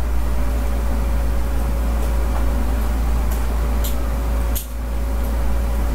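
Loud, steady low electrical hum with hiss and a faint steady whine, the background noise of the recording. A few faint short clicks come between about three and four and a half seconds in, with a brief dip in level near the last one.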